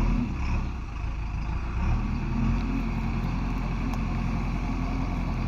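Diesel engine of a JCB 3DX backhoe loader running under work, a steady low hum that eases off about a second in and picks up again.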